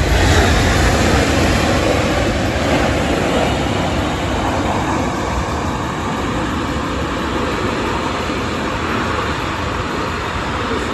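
Boeing C-17 Globemaster III's four turbofan engines running loud in reverse thrust during the landing rollout, a dense jet noise that is loudest at the start and slowly eases off as the aircraft slows.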